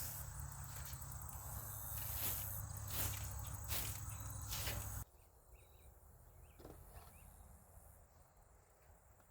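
Insects chirping in a field over a low rumble, with several rustling scrapes or steps. About five seconds in the rumble and rustling cut off suddenly, leaving only faint insect and bird chirps.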